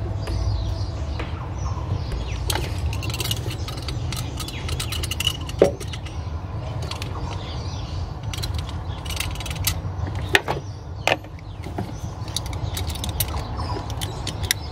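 Scattered sharp clicks and knocks of hands and a hand tool working at rubber heater hoses and their fittings, over a steady low rumble.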